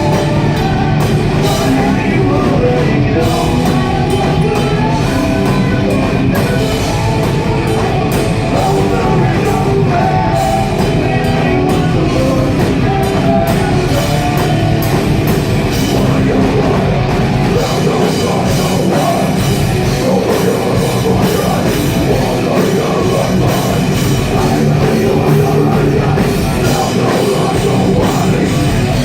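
Live heavy metal band playing loudly with drum kit and guitars. Recorded on a phone that can't handle the volume, so the sound is distorted.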